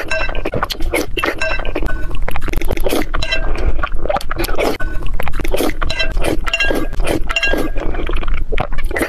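Metal spoon and chopsticks clinking repeatedly against a bowl of boiled eggs in chili broth, mixed with close-miked wet eating sounds.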